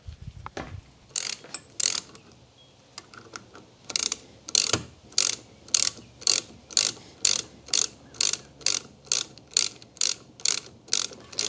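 Hand socket ratchet clicking as it is swung back and forth to run in bolts: a few scattered clicks at first, then a steady run of about two clicks a second.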